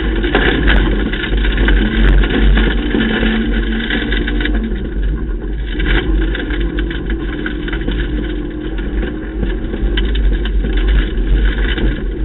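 Ford Ka rally car at speed on a loose-surface stage, heard from inside the cabin: the engine note rises and falls under a heavy, steady rumble of tyre and road noise.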